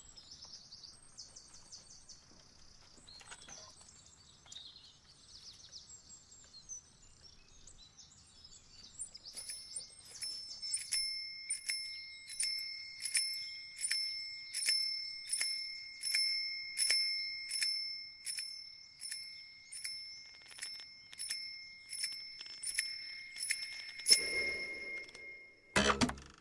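Electronic sound-guide beeper for a blind archer, sending short two-tone beeps at a little under two a second. The archer aims by these beeps. Faint high chirping comes before the beeps start, and a louder thump and a sharp click come near the end.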